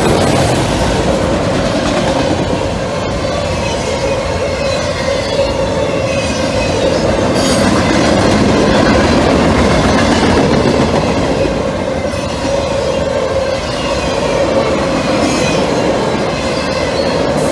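Freight train of autoracks, boxcars and flatcars rolling past at speed: a steady loud rumble of steel wheels on rail, with clacking over the rail joints and squealing wheels.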